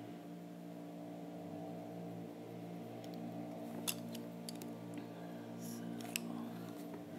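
Faint strokes of a Polychromos colored pencil on a coloring-book page, with a few sharp light ticks about four and six seconds in, over a steady low hum.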